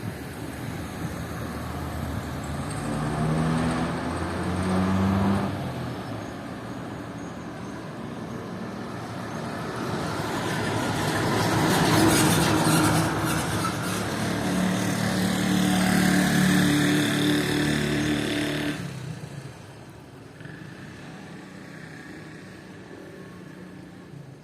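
Mercedes-Benz OF 1318 bus's diesel engine running hard, its pitch climbing as it accelerates, easing off, then building again to its loudest near the middle. It holds a steady high drone for a few seconds, then drops off sharply to a quiet run about three-quarters of the way through.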